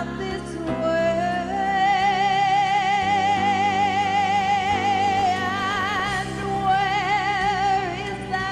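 A woman singing a slow ballad into a microphone, holding one long note with a wide vibrato for several seconds, then a second held note, over sustained accompaniment chords.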